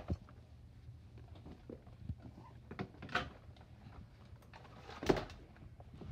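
A few soft, scattered knocks and rustles over a faint low hum, the loudest about five seconds in.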